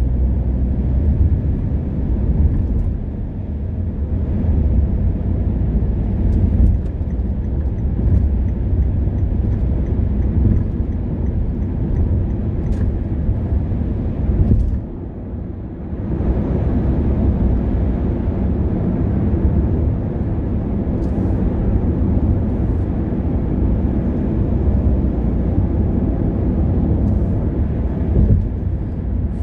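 Steady road and tyre noise with engine hum inside a car cruising on an expressway: a low rumble that dips briefly about halfway through.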